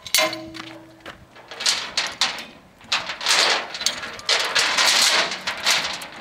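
Steel load chain rattling and clanking in irregular bursts as it is handled and hooked to a lever load binder, with a short ringing tone in the first second.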